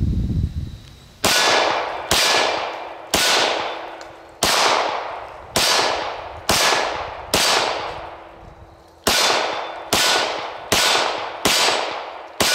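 A Glock 24 long-slide pistol in .40 S&W firing Winchester 165-grain FMJ: about a dozen single shots, roughly one a second, with a pause of under two seconds around the middle. Hits on the steel target ring faintly after the shots. A low rumble comes just before the first shot.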